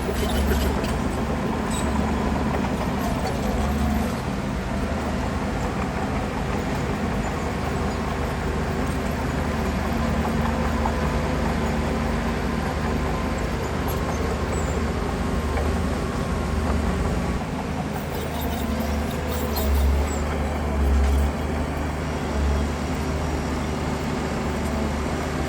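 Heavy diesel earthmoving machinery running steadily at a road-fill site, with a few stronger low surges near the end.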